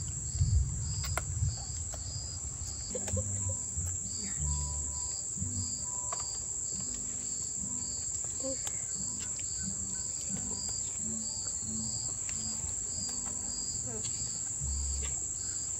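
Crickets and other night insects: a steady high-pitched trill, with a second insect chirping in an even beat about twice a second.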